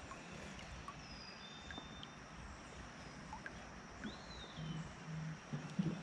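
Quiet outdoor river ambience: a steady faint hiss with a few thin, high whistled bird calls, one rising and falling about four seconds in.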